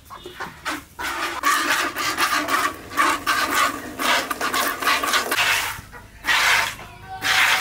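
Streams of milk squirting from a cow's teats into a plastic bucket as the cow is milked by hand, one hissing swish per squeeze. The strokes come in a quick run, then slow to two spaced squirts near the end.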